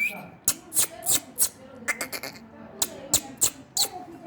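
Indian ringneck parakeet chattering: a quick, irregular string of short, sharp chirps and clicks.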